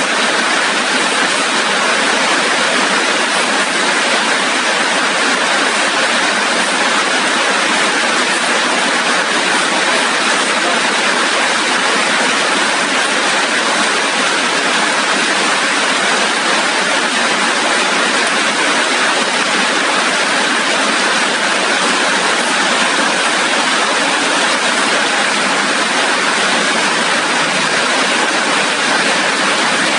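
Rain falling steadily: a loud, even, unbroken hiss with no separate drops or pauses standing out.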